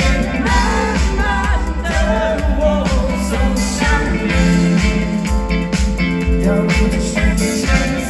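Live pop-rock band playing through an outdoor stage PA: a singer over electric guitars, keyboard and drums, heard loud from among the crowd.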